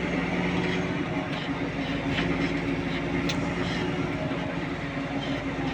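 A vehicle engine running steadily: a constant drone with a few light clicks and rattles.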